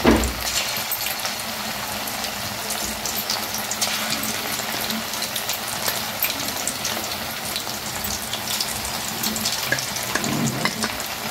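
Marinated chicken pieces deep-frying in hot oil, the oil sizzling steadily with constant small crackles. A low thud at the start as another piece is lowered in with a slotted spoon.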